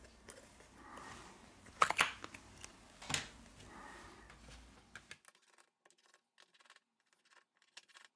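Faint handling sounds from working on an opened smartphone: soft rustle and a few sharp clicks and taps of parts, the loudest about two and three seconds in. After about five seconds there is near silence with only tiny ticks.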